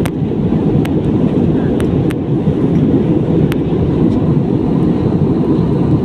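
Airliner cabin noise in flight: a steady low rumble of engines and airflow, with a few faint clicks.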